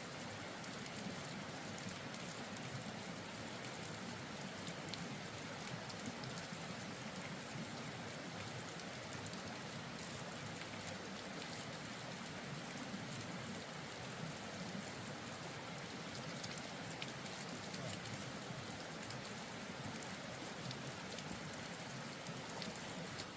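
Steady patter of falling water with scattered small drop ticks, unchanging throughout.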